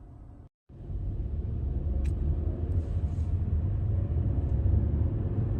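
Audi Q3 under way on a road test after a gearbox repair: a steady low rumble of engine and road noise. The sound cuts out briefly about half a second in, then comes back louder.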